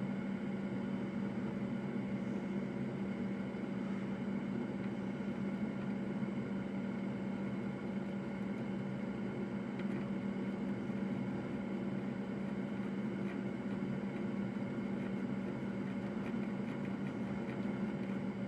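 Solder fume extractor fan running steadily: a constant whir with a low, even hum.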